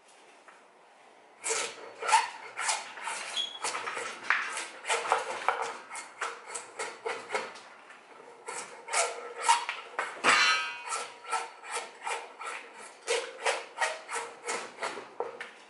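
A homemade drawknife, made from an old planer blade, shaving bark off a log in quick repeated strokes, each a short, sharp scrape of the blade through the bark. The strokes start about a second and a half in and come about two a second.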